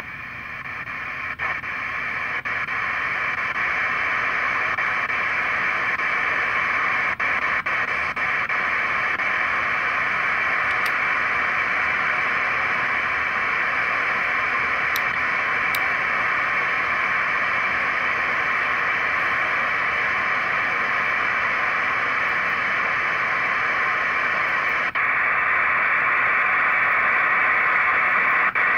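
Software-defined radio receiver playing steady shortwave static around 14 MHz in AM mode, with no station tuned in. About 25 seconds in the hiss changes character, duller but a little louder, as the mode is switched to upper sideband.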